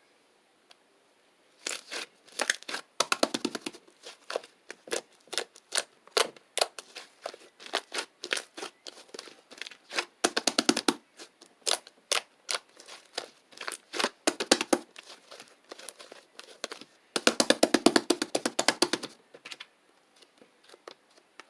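Light-green slime being squeezed and poked by hand, giving off rapid runs of wet clicks and pops in bursts with short pauses between them.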